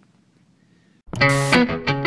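Music with a distorted electric guitar, starting abruptly about halfway through after a quiet first second.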